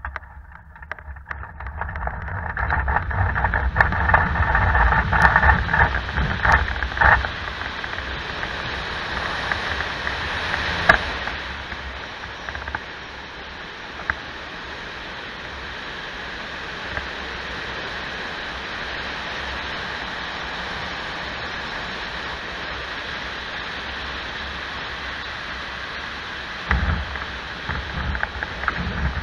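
Cockpit sound of a Zugvogel IIIA glider on a cable launch. The wheel rumbles and rattles over grass as it accelerates, then steady airflow noise runs through the low flight. A sharp pop about eleven seconds in is the launch cable breaking. Near the end the rumble of touchdown and the ground roll comes back.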